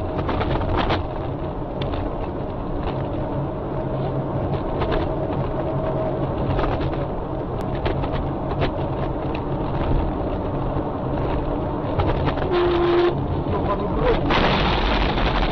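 Car interior road noise: engine and tyres running steadily, with frequent small rattles and clicks, then a louder rushing noise about fourteen seconds in as a cement truck swerves across the road ahead.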